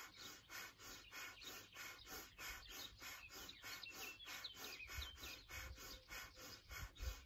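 Kundalini breath of fire: rapid, even puffs of breath through the nose, about three a second, pumped from the navel on each exhale. Birds chirp in the background.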